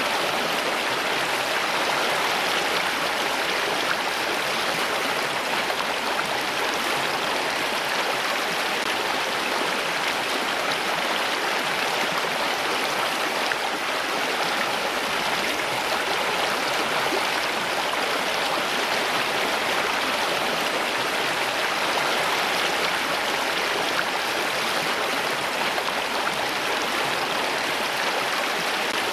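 Steady, unbroken rush of flowing water, like a stream running over rocks.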